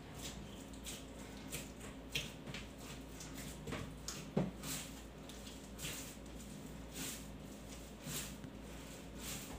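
Roti dough being kneaded by hand: faint soft squishes and light knocks at an irregular pace, with one slightly louder thump about halfway through.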